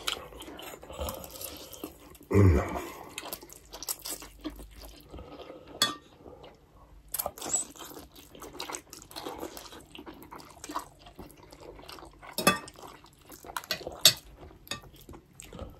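Metal forks clinking and scraping on ceramic plates while instant noodles are slurped and chewed, with scattered sharp clicks and soft wet sounds. One louder burst comes about two and a half seconds in.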